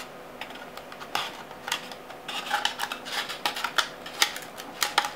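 Handling noise of a Pringles can being worked into a bowl: irregular clicks, scrapes and crinkles as fingers squeeze the bowl's edges in around the can.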